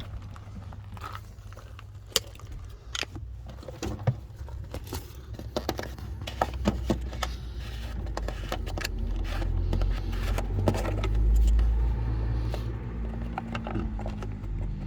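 Scattered clicks, taps and scrapes of hands handling parts while working on a van, over a low rumble that swells about halfway through.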